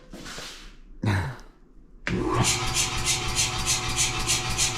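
Anyang 106 air power hammer switched on: its motor and built-in compressor start abruptly about two seconds in and run steadily with a quick, even pulsing. The ram is disengaged, so the hammer is idling and not striking.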